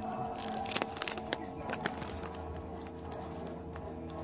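Clear plastic bags on hanging store merchandise crinkling in short irregular bursts, over a faint steady hum.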